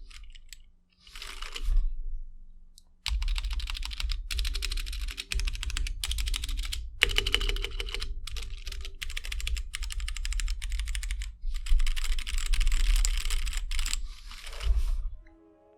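Fast typing on a Gamakay K87 mechanical keyboard with Gateron Brown tactile switches and stock keycaps: dense runs of key clacks. There is a pause of about three seconds near the start, and the typing stops near the end.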